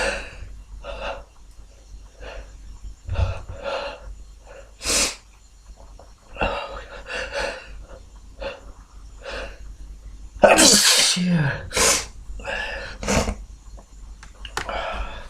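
A person sniffing and breathing in a string of short sharp sniffs, then sneezing about ten and a half seconds in, with another short burst a second later.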